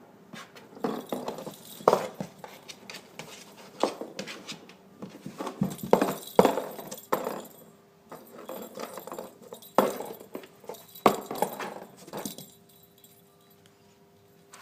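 A cat batting a toy against a wall in a narrow space: irregular flurries of light knocks and rattling clatters, with a short pause partway through, stopping a couple of seconds before the end.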